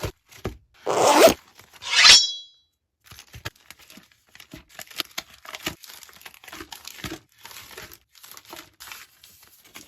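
Paper and plastic packaging being handled: two loud crinkles about one and two seconds in, then a long run of small rustles and taps.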